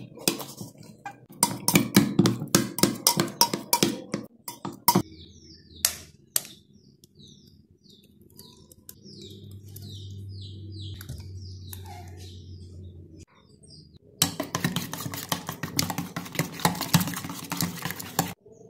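A steel spoon clinks and scrapes rapidly against a stainless-steel bowl while mashing banana pieces. After a quieter stretch, rapid clinking starts again as eggs are beaten with the spoon in the same bowl.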